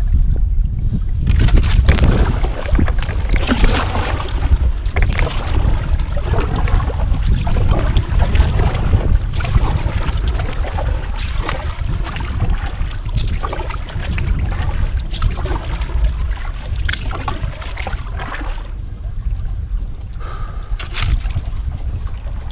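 Kayak paddle strokes splashing in river water, with water dripping off the blades, over a steady low rumble of wind on the microphone.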